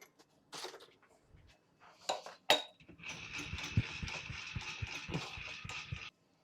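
Deckel FP2 milling machine: a few metallic clicks and knocks, then about three seconds of steady mechanical whirring from the machine running, which cuts off sharply about six seconds in.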